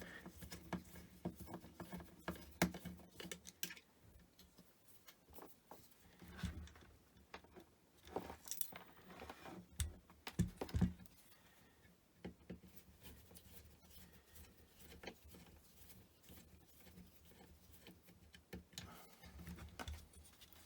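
Scattered small clicks, taps and scrapes of hand tools undoing a screw and nut to take apart a BBC Model B power supply, with a few louder knocks along the way.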